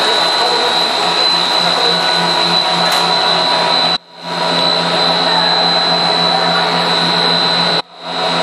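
Rice crust snack extruder running: a steady loud machine drone with a high whine above it. It cuts out sharply about four seconds in and again near the end, fading back in each time.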